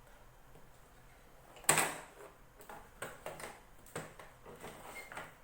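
Handling noise on a workbench: one sharp knock about two seconds in, then a series of lighter clicks and knocks as parts and tools are picked up and set down.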